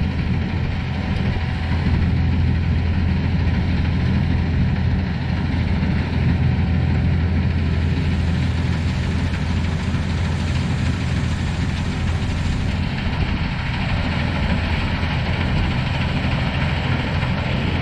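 Sampo 680 combine harvester running steadily: an even, loud low engine drone with a broad mechanical hiss over it.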